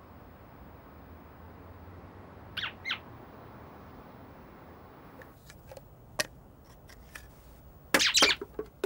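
Cartoon sound effects from a CGI animation soundtrack over a faint steady hiss: two short high chirping squeaks, then a few light clicks, then a louder squeak near the end.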